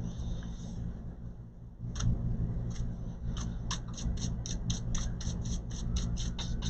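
A small brush scrubbing dust inside an opened laptop in quick short strokes, about four a second, starting about two seconds in, over a steady low hum.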